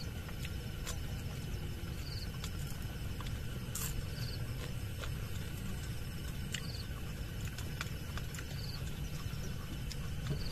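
Open-air background: a steady low rumble with a short, high chirp repeating about every two seconds, and a few faint clicks.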